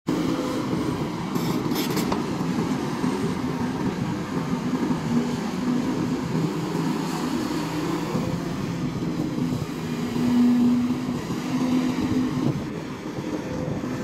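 SDLG crawler excavator's diesel engine running steadily under load while it digs, with a low hum that swells louder for about a second around ten seconds in.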